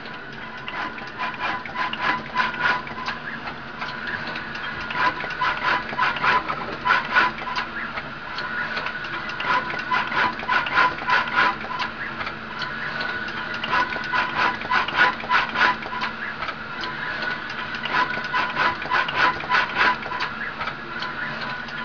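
Muhlbauer TAL 9000 RFID inlay production machine running: a steady machine hum and whine under bursts of rapid mechanical clicking that come and go every few seconds.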